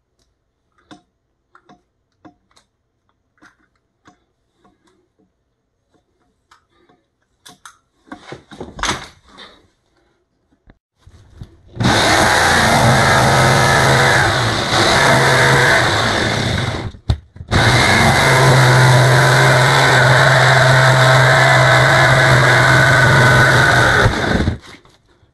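Handheld electric power tool cutting out the pet-door opening, its motor running at full speed. After a few faint clicks and a short burst, it runs steadily for about twelve seconds, with one brief stop midway.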